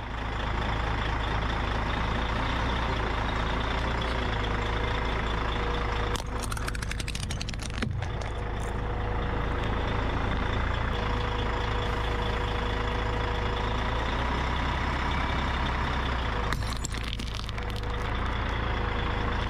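A 7-ton truck's engine running steadily close by while its tyre rolls over Christmas ornaments. Two spells of rapid crackling and crunching, about six seconds in and again near the end, as glass baubles shatter under the tyre.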